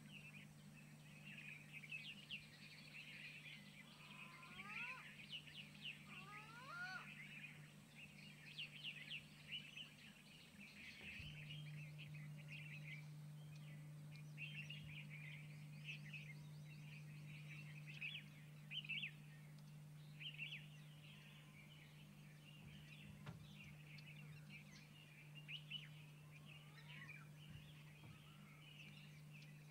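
Faint chorus of wild birds chirping and twittering, with a few sliding whistled calls about four to seven seconds in.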